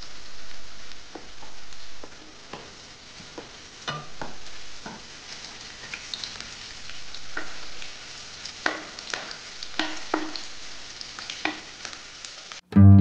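Sliced onions and green chillies sizzling in hot oil in a nonstick wok, stirred with a wooden spatula that scrapes and knocks against the pan many times. Near the end the sizzle cuts off abruptly and acoustic guitar music begins.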